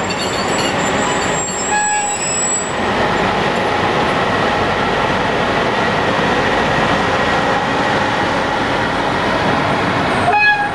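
Class 060-EA electric locomotive hauling a passenger train: steady noise of the train rolling on the rails, with a thin high wheel squeal over the first few seconds.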